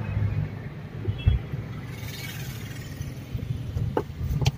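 Car cabin noise while driving: a steady low engine and road rumble heard from inside the car, with a couple of short clicks near the end.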